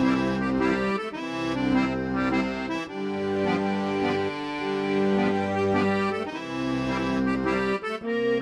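Accordion-led music: held reedy chords that change every second or so, over a bass line.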